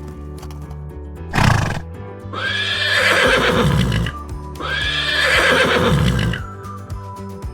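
A horse whinnying twice in two long calls, each with a high pitch that bends downward, after a short burst of breath about a second and a half in, over steady background music.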